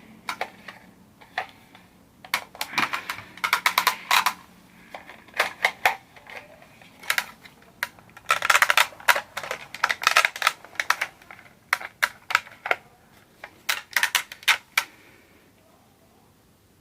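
Airsoft M4 rifle parts clicking and clacking in irregular clusters of sharp clicks as the upper is fitted onto the lower receiver with the charging handle pulled back. The clicking stops a little before the end.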